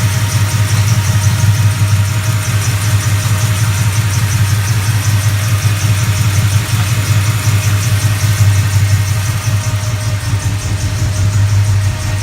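Chevrolet crate 350 small-block V8 idling steadily, with a low even rumble.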